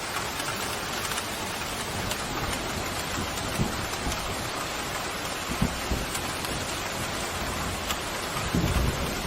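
Pouring rain falling steadily, with a few brief low rumbles of thunder; the strongest rumble comes near the end.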